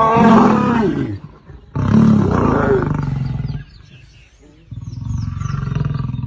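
Lion roaring and snarling in three long calls: one ends about a second in, another follows at about two seconds, and a third starts near five seconds.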